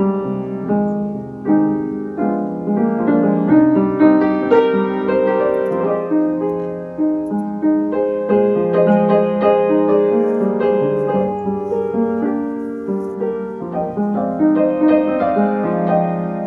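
Background solo piano music: a continuous flowing run of notes.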